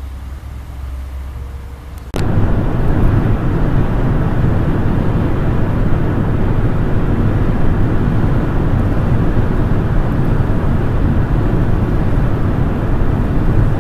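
Steady interior noise of a car cruising at highway speed: road and wind noise over a low engine drone. It starts abruptly about two seconds in, after a quieter low hum.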